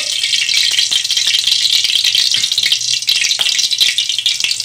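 Hot oil sizzling and crackling in a kadai as the tempering fries: a dense, steady crackle of many fast pops.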